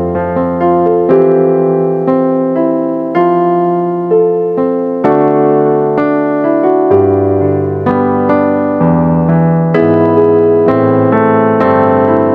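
Piano playing a slow accompaniment in block chords and melody notes, with a new chord struck about once a second and each left to ring.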